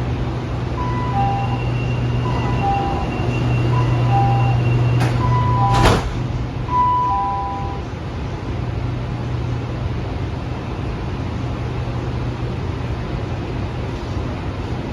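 Metro train's door-closing warning: a two-tone beep, high then low, repeating about every second and a half. The doors thud shut about six seconds in, over the steady hum of the train car.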